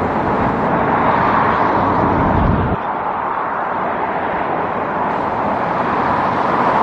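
Steady road traffic noise, with a heavier low rumble from a passing vehicle that drops away about three seconds in.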